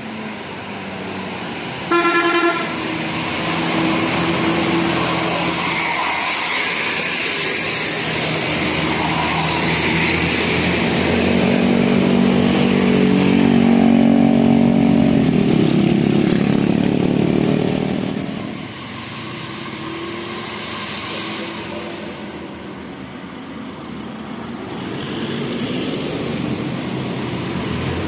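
Road traffic with a bus: a single short horn toot about two seconds in, then a large vehicle approaching and passing, its engine noise loudest in the middle and dropping in pitch as it goes by before fading.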